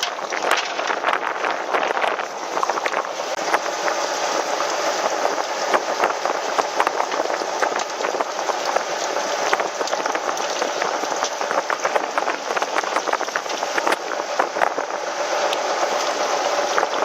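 Steady rushing, splashing water noise with many small crackles and ticks.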